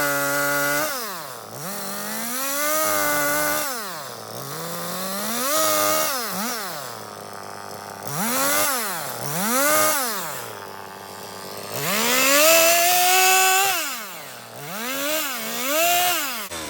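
Chainsaw revving up and easing back toward idle again and again, about seven times, as it makes short trimming cuts into a wooden bowl blank.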